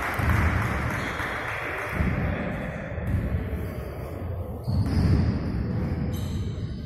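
Basketball game noise: players' footsteps and a dribbled basketball thudding on a wooden court, over a steady hum of crowd and bench noise, loudest again about five seconds in.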